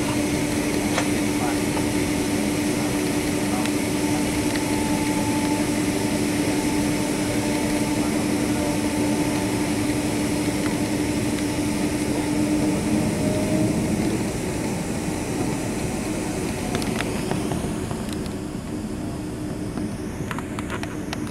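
Steady cabin noise inside a Boeing 767-300 on the ground: idling jet engines and air-conditioning, with a steady low hum. It eases off a little about three-quarters of the way through.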